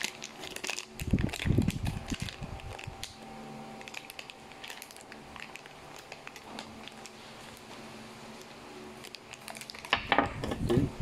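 Clear plastic packaging bag crinkling and rustling as it is handled and opened by hand, with a few dull handling thumps about a second in.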